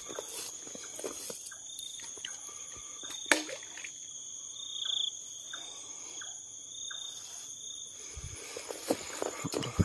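Night insects chirring in two steady high-pitched trills, with a sharp click about three seconds in. Grass rustles and footsteps pick up near the end.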